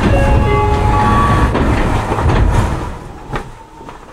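Tokyu 9020 series electric train running, its Mitsubishi full-SiC MOSFET VVVF inverter giving a run of short steady tones that step up in pitch over the first second and a half, over the rumble of the wheels on the track. The sound drops away to a quieter run about three seconds in.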